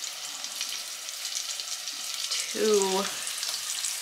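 Seasoned chicken breast frying in hot bacon fat in a saucepan: a steady crackling sizzle full of small pops, growing busier past the halfway point.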